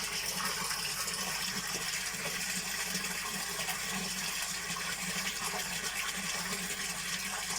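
Steady rush of running water in a koi tank's filtration system.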